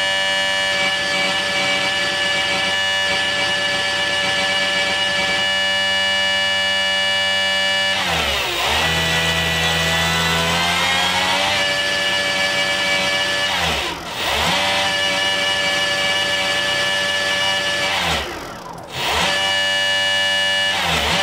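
VEVOR 48V 2000W brushless DC motor spinning at full throttle with a steady whine, a little bit noisy. About eight seconds in, the pitch falls as it slows, then rises back to full speed over a few seconds. It dips briefly again twice, the second time deeper, near the end.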